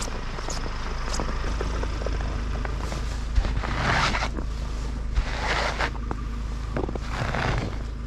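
Footsteps in fresh snow, then three sweeping swishes as snow is wiped off a car windscreen with a jacket sleeve.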